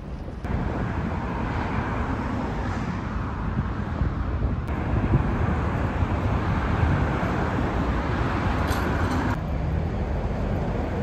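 City street ambience: a steady wash of road traffic noise, which shifts abruptly three times as the recording changes.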